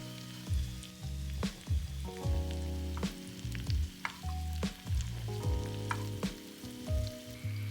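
Food sizzling in a frying pan, with sharp clicks of a utensil stirring or turning it, over background music with held low notes.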